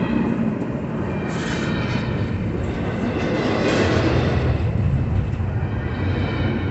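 Double-stack container train rolling past at speed: a steady roar and rumble of steel wheels on rail, swelling slightly about four seconds in.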